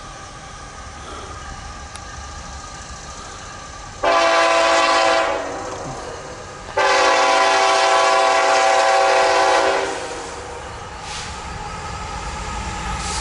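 Diesel locomotive air horn on a loaded CSX coal train, sounding a chord of several tones: a short blast about four seconds in, then a long blast of about three seconds, the closing short-and-long of a grade-crossing signal. Under the horn, the train's low rumble grows louder as it approaches.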